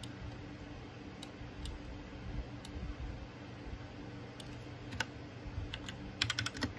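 Mechanical keyboard keys clacking: a few scattered single keystrokes, then a quick run of presses near the end.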